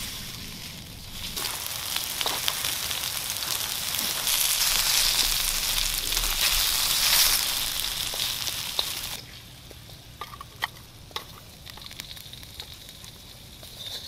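Sliced mushrooms sizzling in oil in a wok over a campfire, stirred with chopsticks. The sizzle falls away about nine seconds in, leaving a quieter stretch with scattered light clicks.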